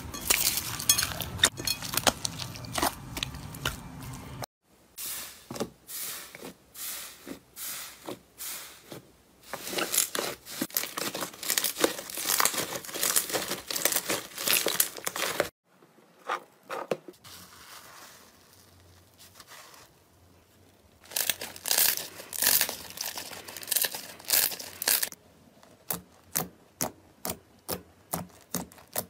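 Hands squishing and kneading slime. First comes a dense crackle of foam-bead floam slime being crushed, then sticky squelches and pops. Near the end come even pops about two or three a second as fingers poke into the slime.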